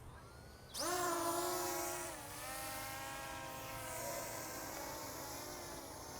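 Brushless motors of a ZLL SG107S drone spinning up suddenly about a second in and running with a steady whine. The pitch dips about two seconds in and then holds a little lower.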